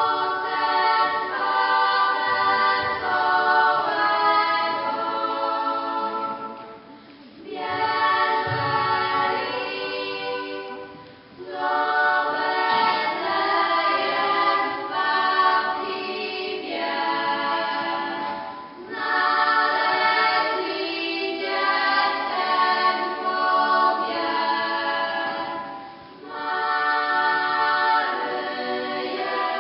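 Small group of girls singing together a cappella, in phrases broken by a few brief pauses for breath.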